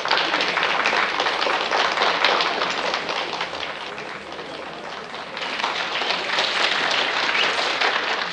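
An audience applauding: many hands clapping together, easing off about halfway through and then swelling again.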